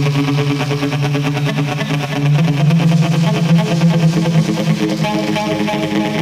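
Live rock band's instrumental song intro: guitar notes picked over a held low note, with no drums yet.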